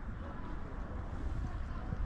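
Wind buffeting the microphone outdoors: an uneven low rumble with a noisy hiss above it and no steady tone.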